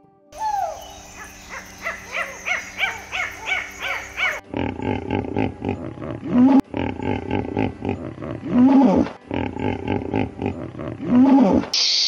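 Hippopotamuses grunting and honking: a run of low, pulsing grunts broken three times by a drawn-out rising-and-falling honk. Before this come about four seconds of quick, evenly repeated rising-and-falling calls from another animal, and near the end the sound cuts to a brief hiss.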